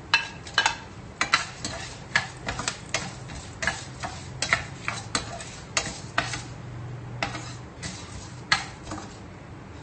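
A white plastic spatula scrapes and clicks against a stainless steel frying pan as urad dal and cashew nuts are stirred in hot oil. The clicks are irregular, about two or three a second, and grow sparser after about six seconds.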